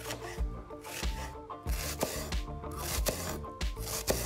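Chef's knife slicing a red onion on a wooden cutting board: repeated crisp cuts, each ending in a knock of the blade on the board, over background music with steady held notes.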